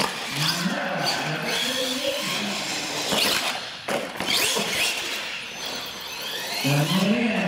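R/C monster truck motor whining as it revs up and down, with a few sharp knocks about three to five seconds in as the truck hits and comes off a ramp.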